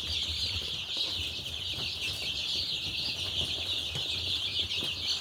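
A brooder full of baby poultry, turkey poults among them, peeping all at once in a dense, continuous high chorus, with a low steady hum underneath.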